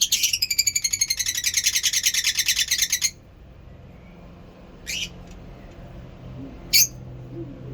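Lovebird calling in a rapid, high chattering trill for about three seconds, then two single sharp chirps.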